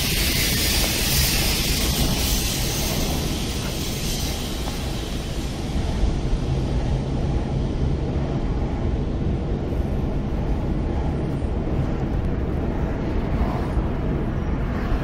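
Steady road noise of a car driving on a city street, heard from inside the cabin: a low rumble of tyres and engine. A brighter hiss in the first few seconds fades away.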